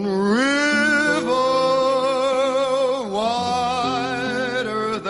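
Background music: a solo singer holds two long notes with wide vibrato, the second starting about three seconds in, over a soft sustained accompaniment.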